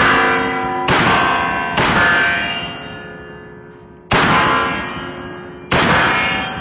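Five loud metallic clangs, each ringing out with several steady tones and fading slowly before the next. They come at uneven intervals, with a longer gap between the third and fourth.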